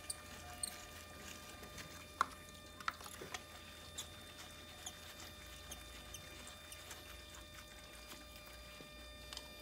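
Faint scattered clicks and rubbing from gloved hands moving a compression tester's hose and fitting between the spark plug wells of an engine that is not running, over a low steady hum. The sharpest click comes about two seconds in.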